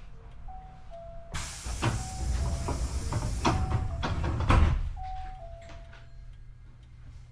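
Low rumble inside a Hankyu 8300 series train car. About a second and a half in, a loud hissing, clattering noise with several knocks sets in; it peaks with a sharp knock near the end of it and dies away after a few seconds.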